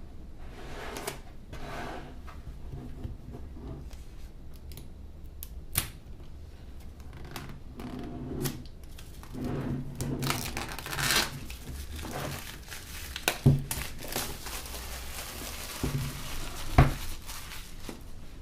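Unboxing handling of iPad Pro packaging: paper and plastic rustling, crinkling and tearing, broken by a few sharp knocks, the loudest near the end.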